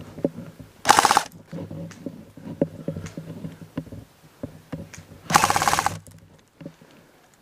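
Airsoft electric gun firing two short full-auto bursts, a rapid rattle of shots. The first burst comes about a second in and the second, slightly longer, about five and a half seconds in, with scattered faint clicks between them.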